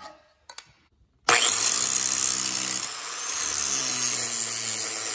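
Angle grinder with a flap disc grinding a piece of steel flat stock, starting suddenly about a second in and running steadily under load with a high whine.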